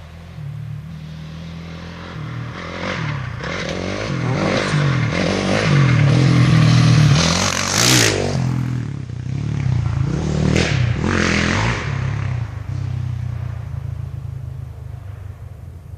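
Single-cylinder four-stroke 450 off-road engines (Honda ATV and dirt bikes) revving as riders approach and pass over a jump, rising and falling in pitch. One machine passes loudest about halfway, with a short scraping clatter, and another follows a couple of seconds later before the sound fades.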